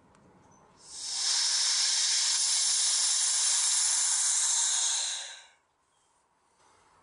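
Air hissing back into a vacuum chamber through its release valve, letting down a vacuum of about 29 inches of mercury so the stabilizing resin is pulled into the wood. A steady hiss starts about a second in and dies away about five and a half seconds in.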